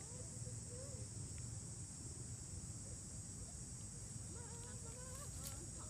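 Steady high-pitched drone of insects (crickets or cicadas), with faint wavering calls about a second in and again near the end.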